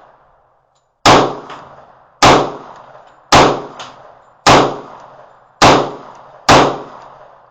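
Six shots from a 10mm Magnum Research 1911 pistol, fired at a steady pace of about one a second, each a sharp crack with a short echoing tail.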